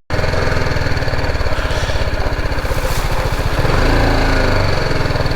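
Small engine running steadily close by, with a rapid even firing pulse.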